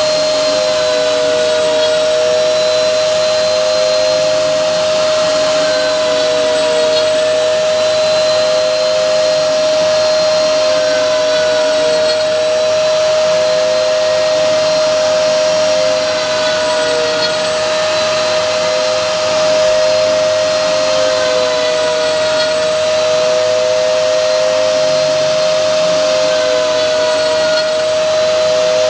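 CNC router spindle motor running at a steady speed with a constant high whine, a second slightly wavering tone beneath it, over a steady rushing noise.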